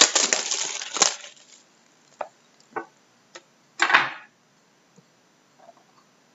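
A sealed trading-card box being torn open: a rush of crackling, tearing cardboard and wrapper in the first second, a few light clicks, and another short rustle about four seconds in.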